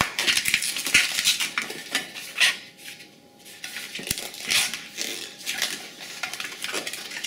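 Inflated latex modelling balloon (160 size) rubbing and squeaking under the fingers as it is twisted and handled: a string of short, scratchy squeaks, with a brief lull about three seconds in.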